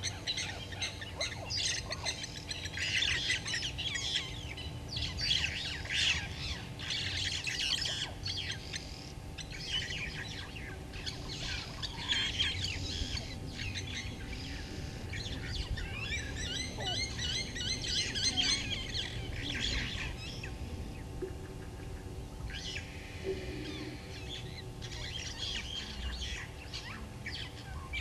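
A chorus of wild bushveld birds chirping and calling, overlapping throughout, with a run of quick repeated trilled notes near the middle. A faint steady hum lies underneath.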